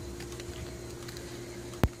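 A steady hum with light crackling, and one sharp knock near the end.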